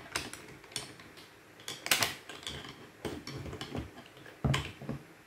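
Screwdriver turning the mounting bolts of a bowfishing reel bracket on a crossbow: irregular small metallic clicks and knocks as the tool and parts tap together. The loudest comes about two seconds in and another near the end.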